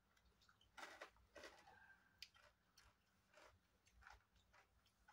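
Near silence, with a few faint, soft wet clicks of fingers pressing and sliding on oiled skin during an abdominal massage.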